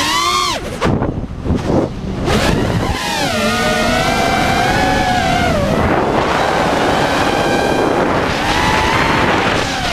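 A 5-inch FPV freestyle quadcopter's brushless motors and propellers whining, recorded by the GoPro riding on it, with wind rush. The pitch sweeps up and falls in the first second and drops away briefly between about one and two and a half seconds in as the throttle eases. After that the whine holds a higher pitch that wavers with the throttle.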